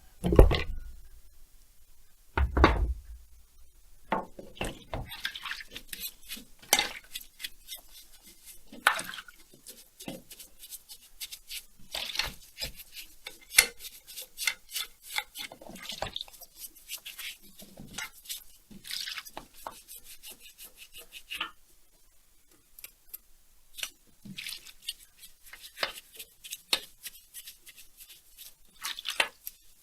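Metal tools and chainsaw engine parts clinking, scraping and knocking on a workbench, with two heavier thumps in the first few seconds.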